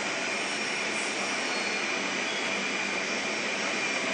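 Jet airliner's engines running at idle as it taxis in toward the gate: a steady hiss with a faint high whine.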